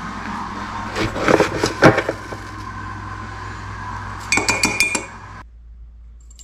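Metal teaspoon clinking against a ceramic mug and jars while instant coffee is spooned out. A few clinks come about a second in, then a quick run of ringing taps at around four and a half seconds.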